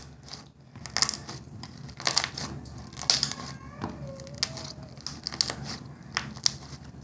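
Slime being stretched and squished by hand, giving irregular sticky crackles and clicks.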